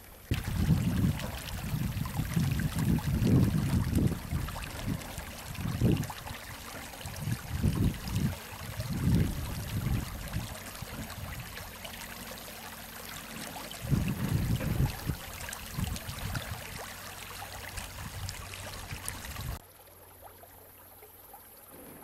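Bridge Creek flowing into a lake: a steady rush of running water, with irregular low rumbling surges over it. The sound cuts off suddenly near the end.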